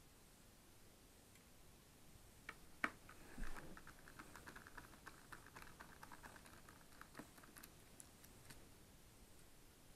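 Faint screwdriver work on a 2008 iMac's screws. Two sharp clicks about two and a half seconds in, then a quick run of small ticks lasting about four seconds, and a few scattered clicks after.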